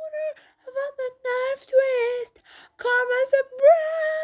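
A high-pitched voice singing short melodic phrases with brief gaps between them, with no instrumental backing.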